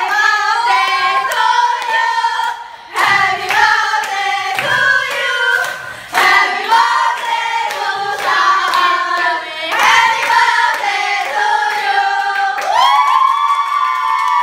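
A group of young women singing along together loudly, with hand claps, ending on a long held note over the last couple of seconds.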